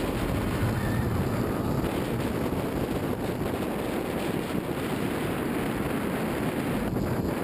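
Steady rush of wind buffeting a camera mounted on the front of a steel roller coaster train at speed, mixed with the low rumble of the train's wheels running along the track.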